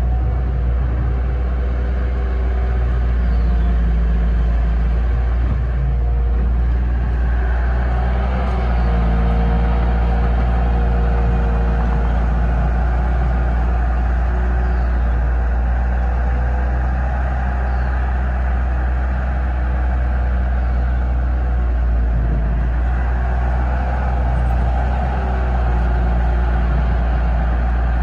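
Heavy work-vehicle engine running steadily with a deep, continuous rumble that changes little.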